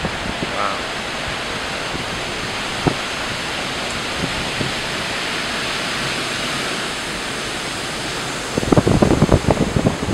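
Steady rushing wind and water noise. Near the end, heavy gusts of wind buffet the microphone.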